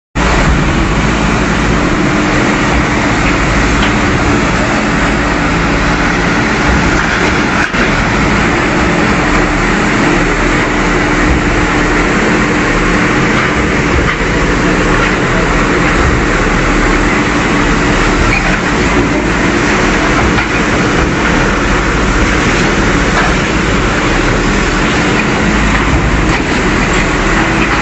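The diesel engine of a heavy demolition bulldozer running steadily with a constant, dense mechanical din.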